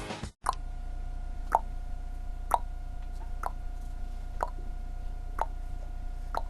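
Slow, even ticking, about one tick a second, over a steady hum.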